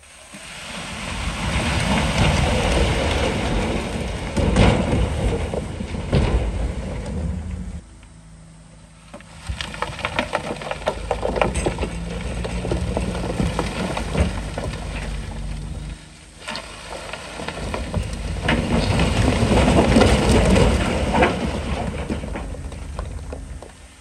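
Heavy earthmoving machinery working loose rock: a diesel engine running under load under a loud rumble of tumbling, clattering stone that swells and fades. It breaks off abruptly about eight seconds in and again about sixteen seconds in, as separate clips follow one another.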